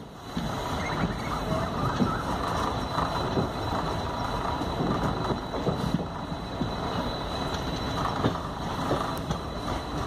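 Diesel-hauled passenger train running at speed, heard from aboard a coach: a steady rumble of wheels on the track with scattered small clicks.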